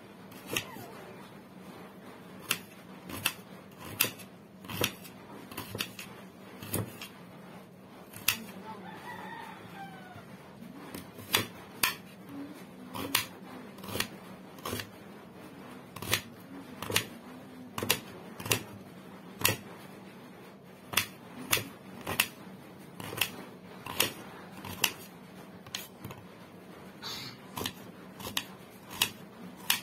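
Knife slicing a red onion held in the hand, a crisp snap with each cut, about one or two cuts a second at an uneven pace.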